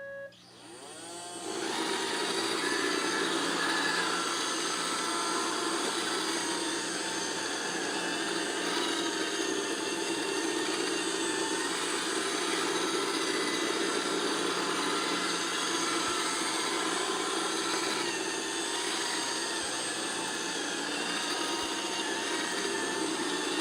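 iRobot Roomba 694 robot vacuum spinning up its suction motor and brushes over the first second or two, then running steadily in spot-clean mode.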